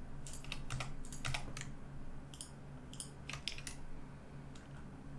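Computer keyboard keys being pressed: scattered single clicks and short pairs at an irregular pace, over a faint low steady hum.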